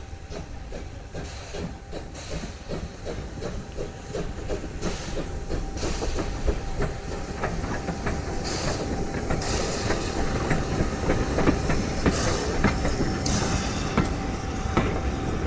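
Small steam tank locomotive pulling a train over a level crossing: steady chuffing of its exhaust with bursts of steam hiss, growing louder as it draws near and passes. The wheels clatter over the rail joints.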